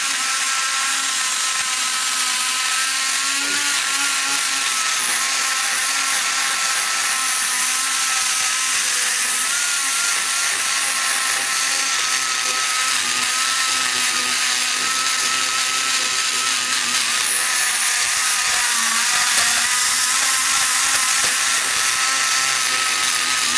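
High-speed die grinder spinning a thin burr against the aluminum exhaust valve guide boss of a cylinder head, shaping the guide into a bullet nose. It gives a steady high whine whose pitch wavers slightly as the burr bites, and it stops at the very end.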